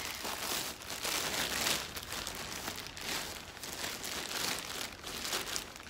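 Plastic bag crinkling and rustling in irregular scrunches as it is handled and rummaged through.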